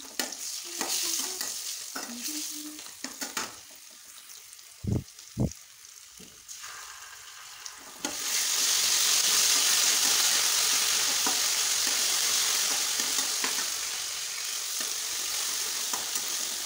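Shallots and spices frying in oil in a wok, with a metal spatula stirring and scraping the pan. Two short thumps come about five seconds in. About eight seconds in the sizzling jumps up suddenly and goes on as a loud, steady hiss.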